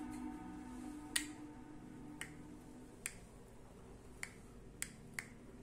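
Background music fading out, then a series of about six sharp, isolated clicks at irregular intervals.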